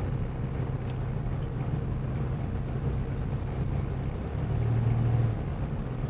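Car interior noise while driving: a steady low hum of engine and road, which swells for about a second around two-thirds of the way through.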